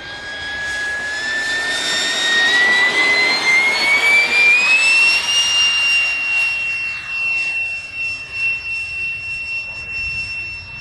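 Electric ducted fan of a Schreiner F-18 model jet whining on its takeoff run, rising in pitch as it spools up over the first five seconds or so. It then holds one high pitch at full power and slowly grows fainter as the jet climbs away.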